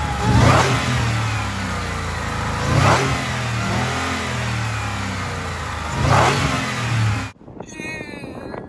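Ford Raptor R's supercharged V8 revved three times from idle, each rev rising in pitch and falling back, with the supercharger's whine over the engine note. The sound cuts off suddenly about seven seconds in.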